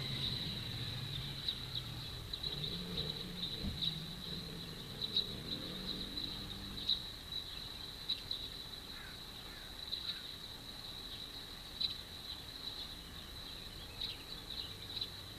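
Insects chirring in a steady, high, even buzz, with frequent brief louder pulses. A low hum underneath fades out about halfway through.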